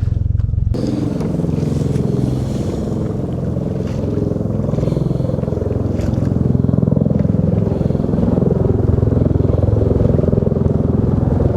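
Small outboard boat motor running steadily under way, picking up about a second in.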